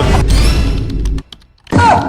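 Looping meme song with a voice over music, cutting off abruptly a little over a second in, then a few faint clicks and a short loud burst with a falling pitch near the end.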